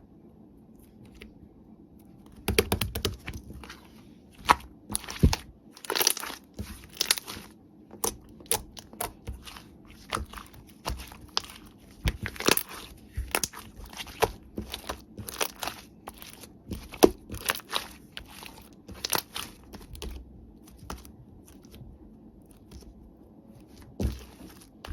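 Irregular crinkling and crackling, many short sharp crackles at an uneven pace, like something thin being crumpled or torn.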